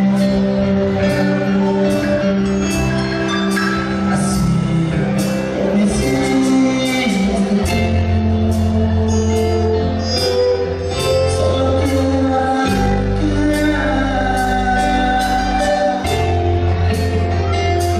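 Live dance band playing on stage with male singing: drum kit keeping a steady beat with regular cymbal strokes, over sustained bass notes and keyboard lines.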